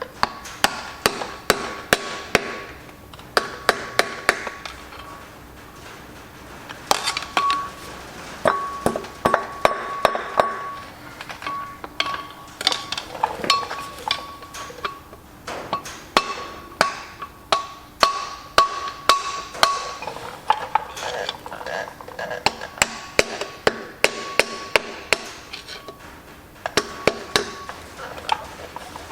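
Irregular runs of light hammer taps on metal, each run followed by a brief ringing tone, with pauses of a second or two between runs.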